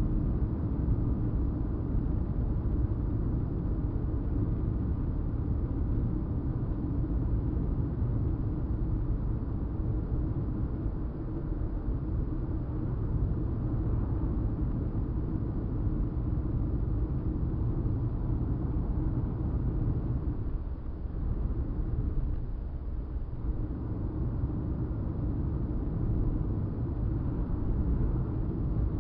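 Car engine and tyre noise heard from inside the cabin while driving: a steady low rumble that eases briefly about three-quarters of the way through.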